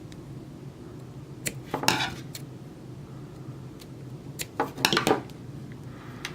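Small metal lock parts clinking and clattering as they are handled, in two clusters: about one and a half seconds in and again about four and a half seconds in. A steady low hum runs underneath.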